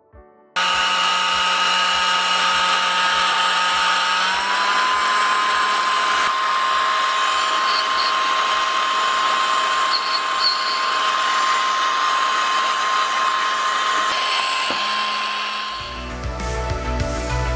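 3D-printed air blower driven by a 775 12 V DC motor, switched on about half a second in and running with a steady high whine over a rush of air. Its pitch rises a little about four seconds in as the motor speeds up. It dies away near the end.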